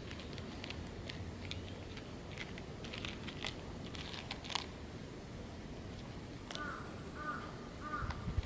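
A cat chewing crunchy food: scattered sharp crunching clicks. Near the end a bird calls four times in a row, evenly spaced.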